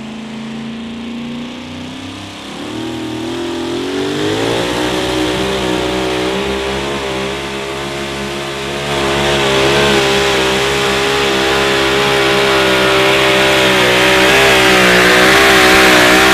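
Two-wheel-drive hot-rod pulling truck's engine revving up over the first few seconds, then held at high revs with a wavering pitch. It gets louder about halfway through. The truck is straining under the sled's load and failing to get it moving.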